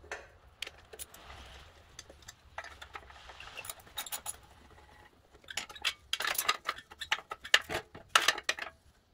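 Hand ratchet with a 1/4-inch Allen bit loosening a mower engine's exhaust bolts: scattered small metal clicks and taps, then two runs of rapid ratchet clicking past the middle and near the end.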